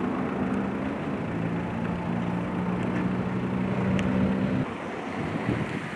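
A motor vehicle's engine running steadily under a broad rush of noise; the engine hum stops about four and a half seconds in.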